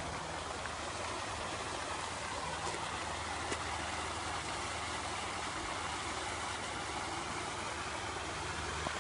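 Steady outdoor background noise: an even hiss with a faint low hum underneath, and no clear splashes.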